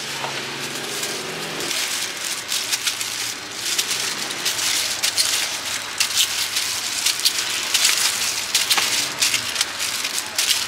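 Plastic rustling and crackling with light clicks of fruit pieces landing in a metal bowl, as cut sour fruit is picked by a plastic-gloved hand from plastic-lined trays.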